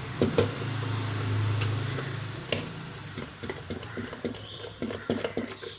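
Plastic clicks and taps as the case of a handheld digital multimeter is handled and opened, a few sharp snaps followed by a run of small quick clicks. A low hum sounds under the first couple of seconds.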